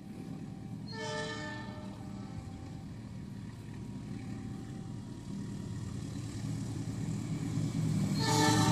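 Diesel-electric locomotive approaching with its train, its engine rumble growing steadily louder. Its horn sounds a short blast about a second in and again near the end.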